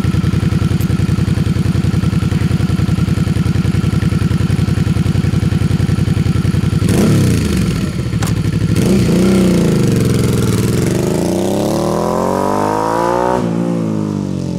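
Motorcycle engine idling with an even, pulsing beat; about seven seconds in it revs and pulls away, its pitch dipping and then climbing in one long rise that drops sharply near the end, as at a gear change.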